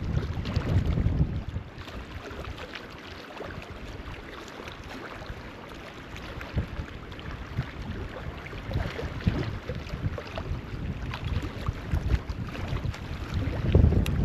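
Wind buffeting the camera microphone in gusts, strongest in the first second or so and again near the end, with scattered small ticks and taps throughout.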